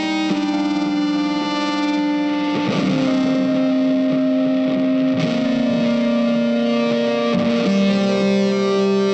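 Music with long held notes that change pitch every two seconds or so.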